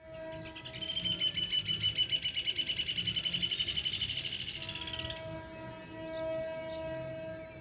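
A GT22CU diesel locomotive's horn sounds a steady note in the distance, briefly at the start and again for about three seconds from about four and a half seconds in. From about one to five seconds a loud, high-pitched trill pulses rapidly, about ten pulses a second, over it.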